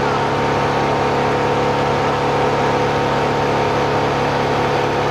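An engine running steadily at a constant speed, with no revving.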